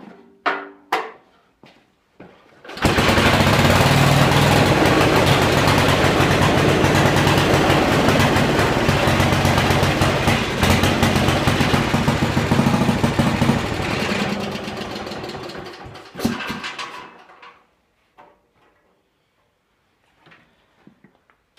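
Briggs & Stratton model 23D single-cylinder engine, its carburetor just rebuilt, catching on a rope pull about three seconds in and running loudly and steadily, then slowing and stopping about 17 seconds in.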